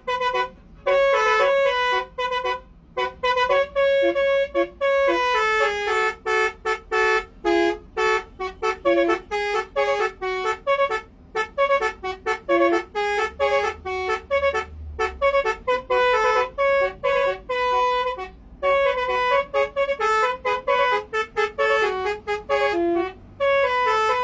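A Basuri bus's 'telolet' musical air horn playing a fast melody of short, clear notes almost without pause, with a few longer held notes. There is a brief low rumble about halfway through.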